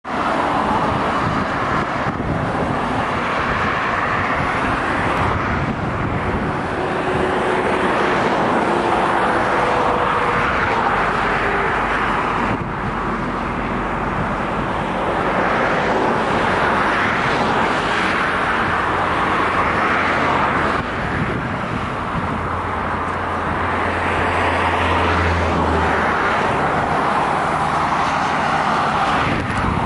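Road traffic on a highway: steady tyre and engine noise that swells and fades as cars and trucks pass. A heavy vehicle's low engine hum stands out for a few seconds about three quarters of the way through.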